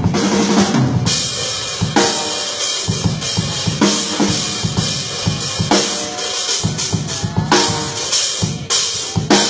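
Drum kit played in a busy groove, with kick, snare and cymbal hits, over music that has pitched instruments.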